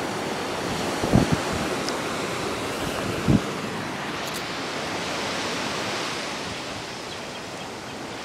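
Ocean surf washing onto a sandy beach, a steady rushing with wind on the microphone. There are short low thumps about a second in and again about three seconds in.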